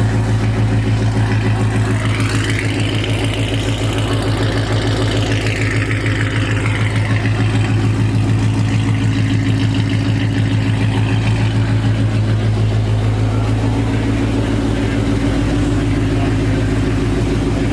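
2012 Shelby GT500's supercharged 5.4-litre V8 idling steadily through newly installed long-tube headers and an off-road X-pipe.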